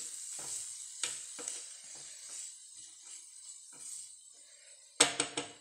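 A spatula stirring and scraping chopped cabbage stuffing around a nonstick pan, in short scrapes over a faint hiss. About five seconds in come three or four quick sharp knocks, the loudest sounds here.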